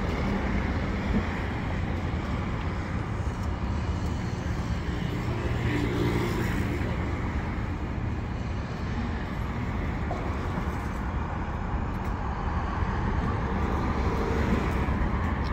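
Steady low background rumble of a busy public place, with faint voices murmuring in the distance.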